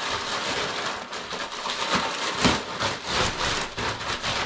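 Brown kraft packing paper crinkling and rustling as it is pulled open by hand, a continuous run of dense crackles.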